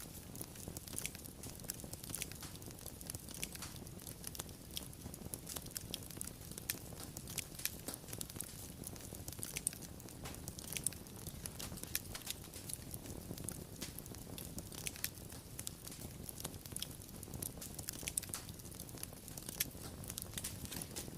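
Fire crackling: many small, irregular, sharp snaps and pops over a low, steady rumble of burning flames.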